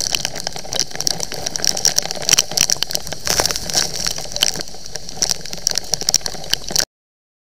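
Heavy rain hitting a helmet-mounted camera on a moving Yamaha MT15 motorcycle: a dense, loud patter of drop clicks over wind and engine noise. It cuts off suddenly near the end.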